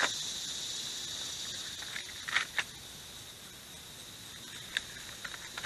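A steady, high-pitched drone of insects in the summer yard. Over it come a few short rustles and clicks of Bible pages being handled and turned, about two and a half seconds in and again near the end.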